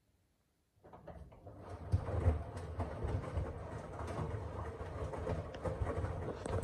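Washing machine starting up from silence about a second in: the drum begins to turn and builds within a second into a steady low rumble with irregular knocks.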